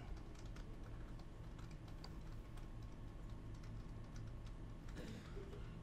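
Faint room tone: a steady low hum with light, scattered clicks.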